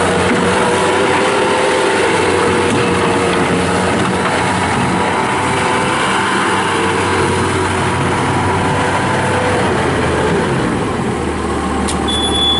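Bobcat T180 skid steer's Kubota diesel engine running steadily; about ten seconds in its pitch drops a little and it eases off briefly.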